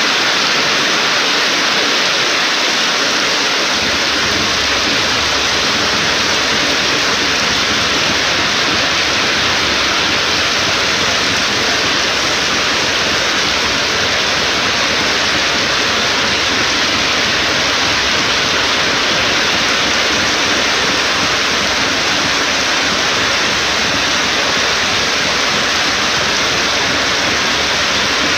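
Heavy rain pouring down in a steady, loud hiss, from storm rainfall.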